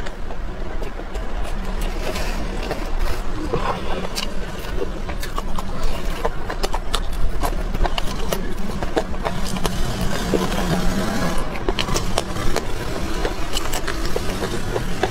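Close-up mouth sounds of eating a steamed bun and raw red chili peppers: chewing and crunching with many sharp wet clicks and smacks, over a steady low hum.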